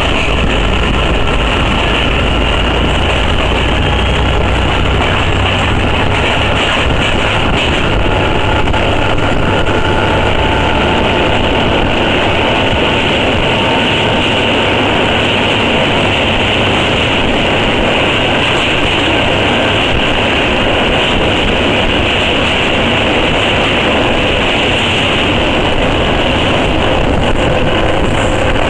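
Passenger train running at speed, heard from inside the carriage by an open window: a loud, steady rumble of wheels on rails mixed with rushing air, with no pauses or sudden events.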